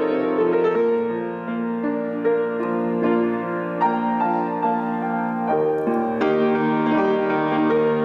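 Grand piano played solo: a slow piece of held chords and melody notes that change about once a second.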